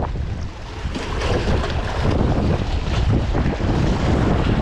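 Wind buffeting the microphone with a steady low rumble, over small waves splashing against shoreline rocks.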